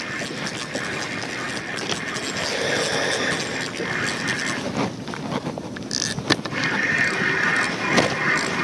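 Spinning reel being wound in steadily to bring up a hooked fish, a steady mechanical whir, with a few sharp knocks of handling in the second half.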